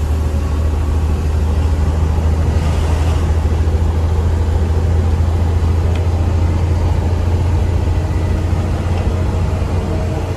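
Tata Signa 5530 truck's diesel engine running steadily under way, a strong, even low drone.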